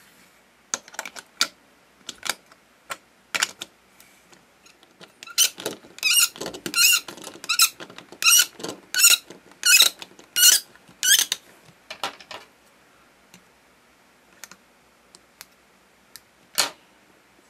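Bandai Cooking Puchi plastic toy noodle press squeaking as it is pushed down to extrude noodles: a run of about ten short, sharp squeaks over some six seconds, with plastic clicks and taps before it and one click near the end. The dry plastic parts make the strange squeal, which the maker wonders whether oiling would cure.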